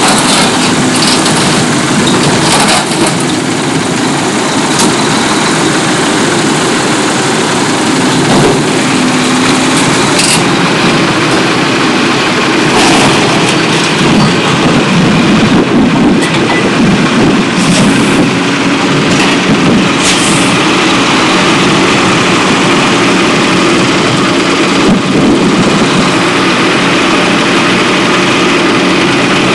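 Heavy scrap-handling machine's engine running steadily, with scattered metal clanks and crunches as its claw tears apart an old excavator.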